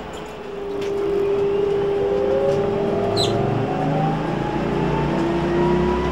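Electric traction motor of a Solingen trolleybus whining and rising steadily in pitch as the bus gathers speed, over the hiss of tyres on a wet road. It grows louder about a second in, and there is a brief high squeak about three seconds in.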